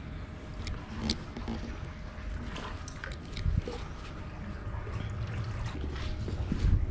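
Seawater lapping and slapping against a harbour wall and wooden jetty pilings, with small irregular splashes, over a low steady rumble that grows louder near the end.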